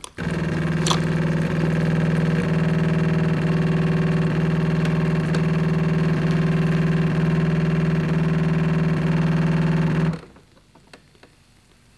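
Jura E8 super-automatic espresso machine brewing a shot into two cups: a steady hum that stops abruptly about ten seconds in, with a single click about a second in.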